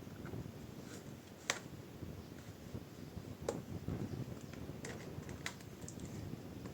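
Plastic laptop casing being pried and handled: a low rustle of handling with a few sharp plastic clicks, the loudest about a second and a half in, and others near the middle and later.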